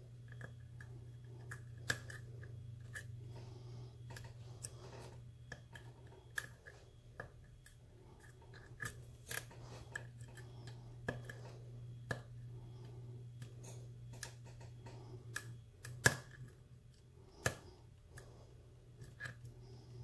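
A lock pick working the pins of a brass pin-tumbler padlock under tension: faint, irregular clicks and ticks as the pick lifts and drops the pins, a few of them sharper, over a steady low hum.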